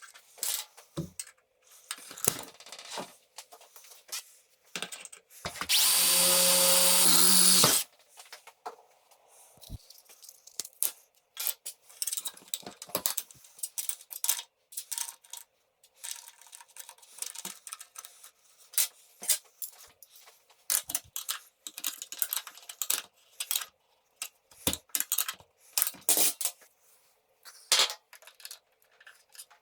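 A power tool, drill-like, runs loudly for about two seconds near a quarter of the way in. Scattered clicks and light knocks of parts being handled fill the rest.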